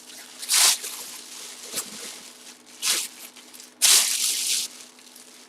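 Trading cards being handled: three short, hissy scraping rasps, the last lasting about a second, as cards and their plastic sleeves slide against each other.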